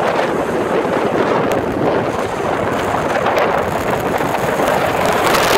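Steady wind rush buffeting the microphone aboard a 25-foot tri-toon pontoon boat running fast over choppy water, mixed with the rush of water past the hull.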